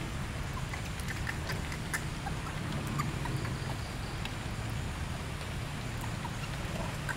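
Water dripping after rain: scattered light ticks over a steady low rumble.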